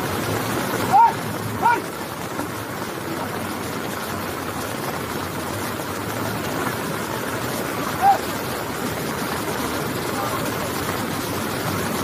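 Floodwater rushing steadily, a fast muddy torrent pouring through a street. Three brief high-pitched shouts cut through it, about a second in, near two seconds and about eight seconds in.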